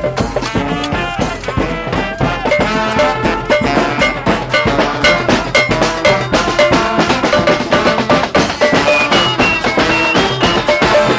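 Street brass band playing: several horns play a tune together over a steady beat of drums and percussion.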